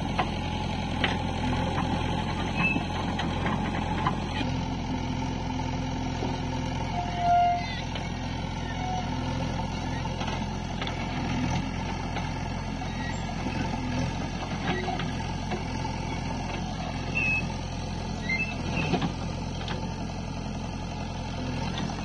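Diesel engines of a JCB 3DX backhoe loader and a Sonalika tractor running steadily, with a few scattered knocks as the backhoe bucket dumps pond mud into the tractor's trolley. A brief beep about seven seconds in is the loudest sound.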